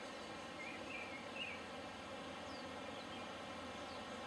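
Faint forest ambience: a steady background hiss with a few short, faint bird chirps, mostly in the first second and a half.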